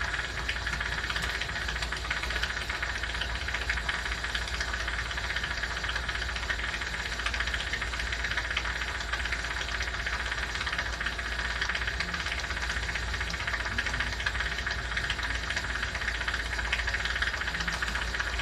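Steady hissing with a low hum from a jeweler's welding torch flame and a jewelry steamer running together. The owner thinks the steamer may be failing.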